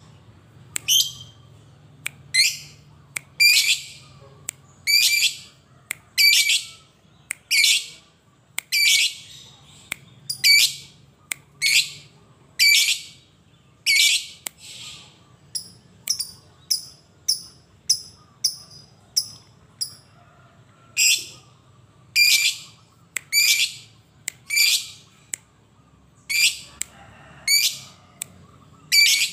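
Fischer's lovebird calling with a steady string of shrill, sharp calls, each about half a second long and a little over a second apart. Around the middle it switches for a few seconds to a quicker run of shorter, higher chips, then goes back to the longer calls.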